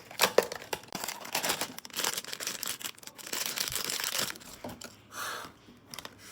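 Blind-box packaging being torn open and crinkled: a dense run of tearing and crinkling for about four seconds, then a few lighter rustles.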